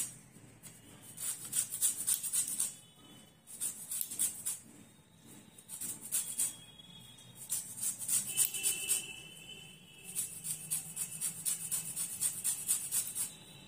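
A whole orange rubbed across a fine metal zest grater, making fast rasping strokes in several runs with short pauses between them. Faint music with a few held notes plays behind.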